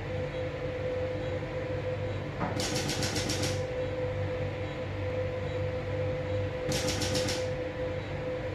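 Intracorporeal lithotripter breaking up a urinary stone: two bursts of rapid, evenly repeated clicks about a second long each, some four seconds apart, over a steady hum of endoscopy equipment.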